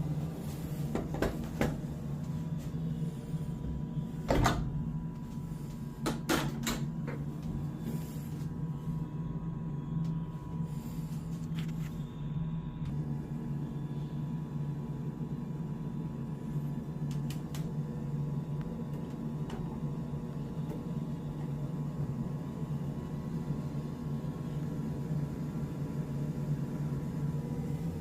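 Samsung washing machine running with a steady low hum, with several sharp clicks and knocks in the first half. The machine is in a cycle but no water is coming in.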